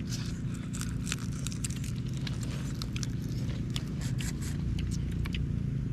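Grilled mantis shrimp shells being cracked, peeled and chewed: a run of sharp, irregular crunches and clicks over a steady low hum.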